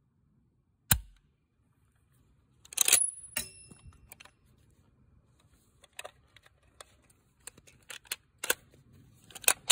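Metallic clicks and clacks from handling an SVT-40 rifle's action. There is a sharp click about a second in, then a louder clack with a brief metallic ring about three seconds in, then a run of lighter clicks.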